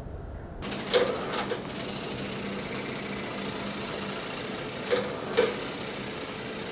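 Film projector running: a steady mechanical clatter and hum that cuts in abruptly about half a second in. A pair of sharper knocks comes about a second in and another pair about five seconds in.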